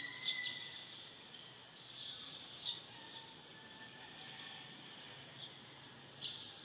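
Birds chirping, short calls every second or two, over a steady high-pitched drone of insects.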